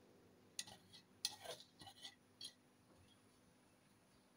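A handful of faint short scrapes and light clinks, about five in the first two and a half seconds, as grated coconut is scraped from a stainless steel bowl into a steel kadai; then near silence.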